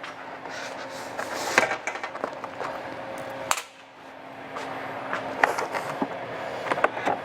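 Motorcycle parts being handled: a dense run of scraping, rattling and clicking, with a faint steady hum underneath that breaks off with a sharp click a little past halfway and then resumes.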